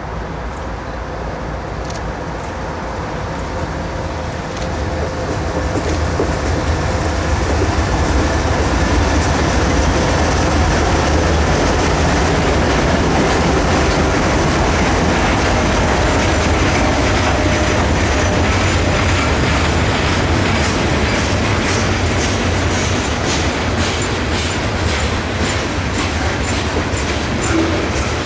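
A freight train led by a pair of CSX AC60CW diesel locomotives passes close by. The locomotives' engines run past with a strong low sound that builds over the first several seconds. Then a long string of freight cars rolls by, its wheels clicking rhythmically over the rail joints, the clicks growing sharper near the end.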